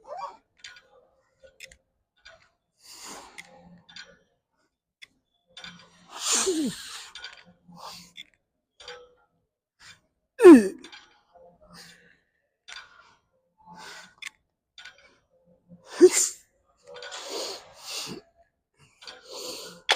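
A man's strained exhales and groans while lifting: three loud ones sliding down in pitch, about 6, 10 and 16 seconds in, with heavy breathing between and faint clicks.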